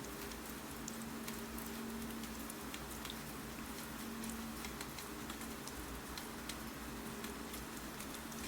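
Steady rain with keyboard typing: scattered light key clicks over an even hiss of rain, with a faint steady hum underneath.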